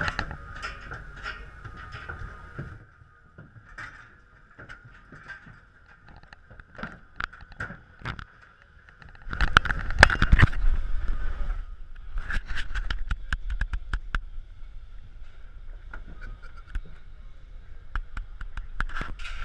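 Clanks, knocks and shuffling inside an aluminium livestock trailer holding bulls on straw, with a faint steady whine underneath. About nine seconds in, a louder stretch of close rustling and thumping lasts a couple of seconds. After that the scattered metal knocks go on.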